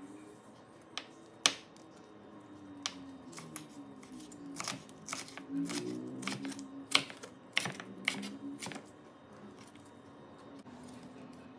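Chef's knife slicing a red bell pepper into strips on a wooden cutting board: a dozen or so sharp, irregular taps as the blade strikes the board, most of them between about one and nine seconds in.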